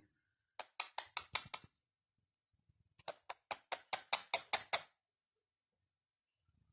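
Two quick runs of sharp knocks, about six a second: about seven starting half a second in, then about ten more starting around three seconds in.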